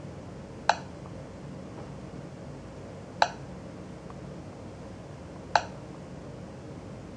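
Three short, sharp clicks about two and a half seconds apart, one with each tap on a Garmin 2699 LMT-HD GPS touchscreen, over a steady low hiss.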